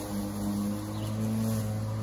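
Greenworks 20-inch, 12-amp corded electric lawnmower running as it cuts grass: a steady low drone that holds one pitch.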